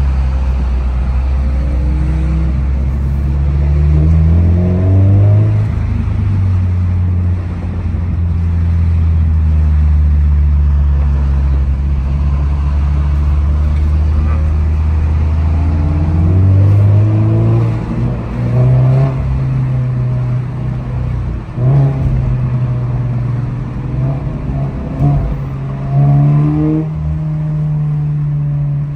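2023 Toyota GR86's 2.4-litre flat-four engine heard from inside the cabin while driving in traffic. The pitch climbs as the car accelerates, holds steady for several seconds, then rises and drops sharply several times in the second half as it speeds up and shifts.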